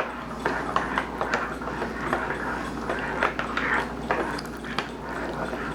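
A spoon stirring hot cocoa in a mug, knocking and clinking against the cup in quick irregular clicks, several a second.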